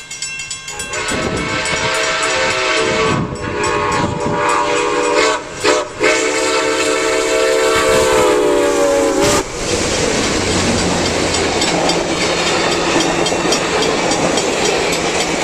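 Steam locomotive's chime whistle blowing one long, loud blast with a few short breaks, then stopping. After that comes the rumble and clatter of the train's wheels passing on the rails.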